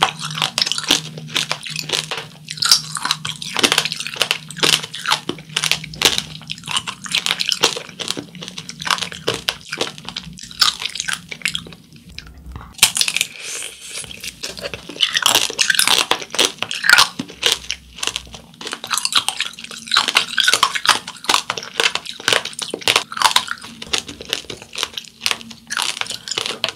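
The hard sugar shell of candied tangerine (tanghulu) crunching and crackling as it is bitten and chewed, with a brief pause about halfway and then a fresh bite.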